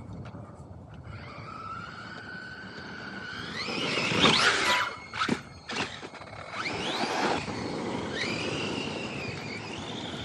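Electric RC car's motor whining as it is throttled, the pitch rising in several surges, loudest about four seconds in. A few sharp knocks come around five to six seconds in.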